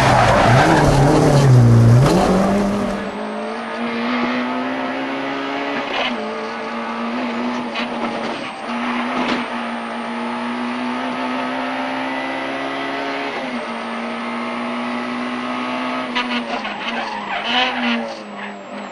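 Peugeot 106 Rallye's 1.3-litre four-cylinder engine running hard during a rally stage, its revs rising and falling in the first few seconds inside the cabin, then heard from outside by the wheel with the note held almost level at high revs, dipping briefly a few times, over wind and tyre noise.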